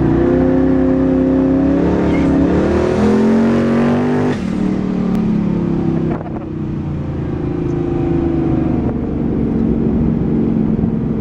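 Turbocharged 5.3-litre V8 in a 1968 Pontiac GTO, heard from inside the cabin while accelerating on a track. The engine note climbs for about four seconds, falls abruptly at a gear change, dips again about six seconds in, then climbs slowly again.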